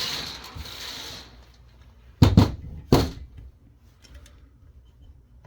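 Scraping and handling noise, then three sharp knocks within about a second as parts of a car radio are handled and set down during its teardown.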